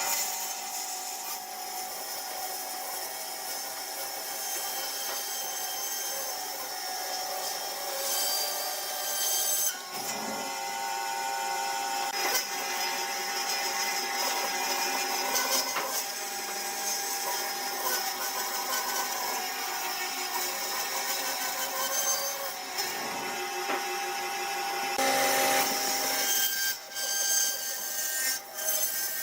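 Wood lathe running steadily with a steady machine whine while a turning tool cuts the spinning wood with a rough, scraping hiss. The sound drops out briefly about a third of the way in and twice near the end.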